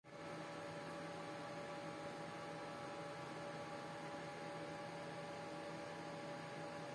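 Steady electrical hum: a few constant tones over a faint even hiss, unchanging throughout.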